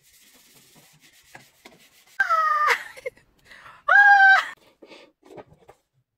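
A small child's voice: two short high-pitched cries or squeals, each about half a second long, the first falling in pitch, after a couple of seconds of faint rustling.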